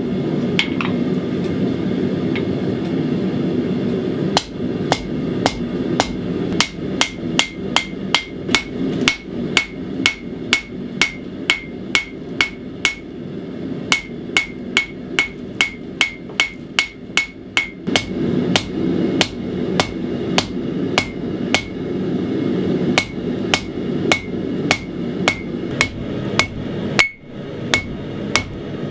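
Hand hammer striking hot 80CrV2 steel on an anvil, forging a bowie knife blank: each blow rings briefly. The blows are sparse at first, then fall steadily at about two a second, over a continuous low rushing noise.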